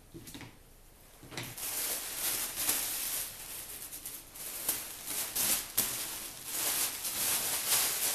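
Thin plastic trash bags rustling and crinkling as they are unfolded and smoothed flat by hand, starting about a second in.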